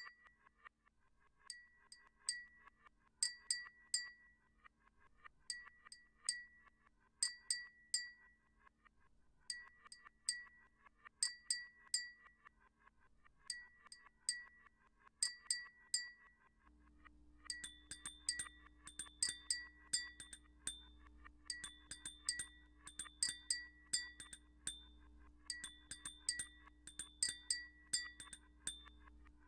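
Live-looped granular synthesis from a Max/MSP patch: clusters of short, chime-like clicks repeating in a steady pattern every few seconds. A little past halfway a second loop is stacked on, adding a higher ringing tone and a low hum under the clicks.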